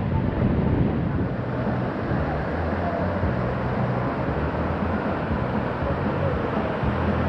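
Wind blowing across the microphone with the steady wash of breaking surf, a low rumble under an even hiss.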